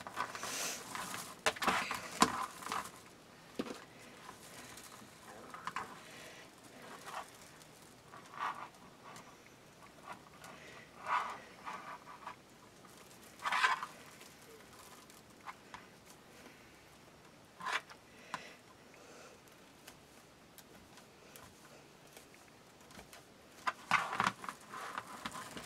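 Plastic deco mesh rustling and crinkling in short, irregular bursts as it is handled and bunched in the hands.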